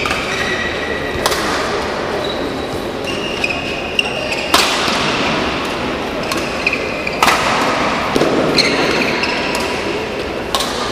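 Badminton rally: rackets hitting a shuttlecock in four sharp cracks roughly three seconds apart, each with a short echo of the hall after it. Shoes squeak briefly on the court floor between the hits.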